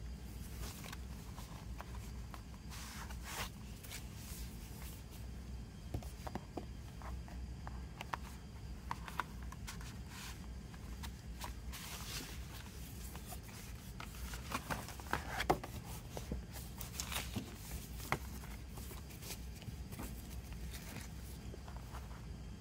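Hands handling a CD and DVD package's paper: scattered rustles, slides and light taps as booklet pages are turned and a photo card is drawn from a paper sleeve, busiest a little past halfway, over a steady low hum.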